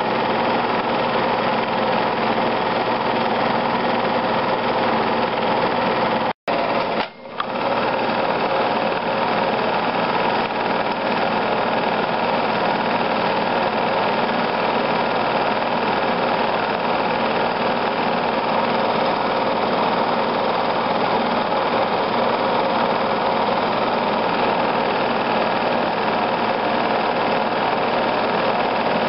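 Film projector running: a steady mechanical whirr and clatter of the motor and film transport, dropping out for under a second about six seconds in.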